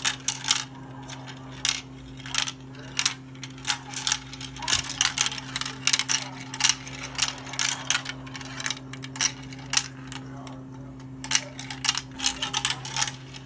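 Glass marbles running down a plastic marble run, clacking against the track pieces and each other in many sharp, irregular clicks.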